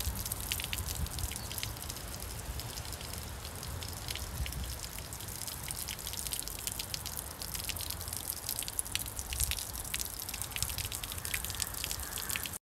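Water overflowing the brim of a full vessel, running down its sides and splashing and dripping onto a wet tabletop in a steady spatter of many small drips.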